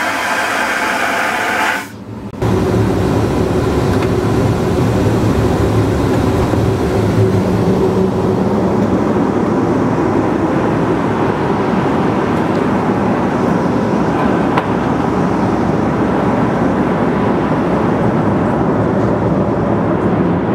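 Airbus A321 vacuum toilet flushing with a rushing hiss that cuts off abruptly about two seconds in. Then the steady low rumble of the airliner's cabin in flight, from the engines and airflow.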